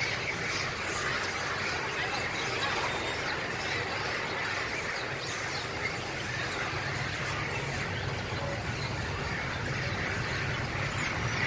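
A large troop of long-tailed macaques squealing and shrieking in a mass fight: many overlapping high calls at once, over a steady low rumble of waiting traffic.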